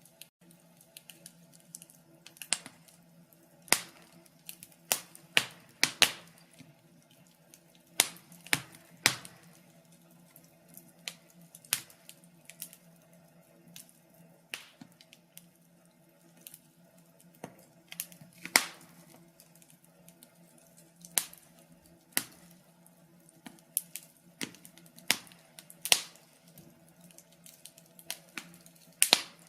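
Wood fire burning in a fireplace, crackling with irregular sharp pops roughly every second, a few of them much louder, over a faint steady hum.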